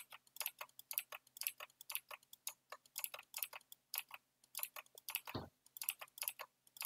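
Computer keyboard typing: quick, irregular key clicks, with one heavier keystroke about five seconds in.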